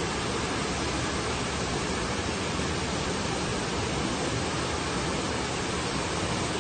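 Steady rush of fast-flowing floodwater, an even hissing noise that does not change.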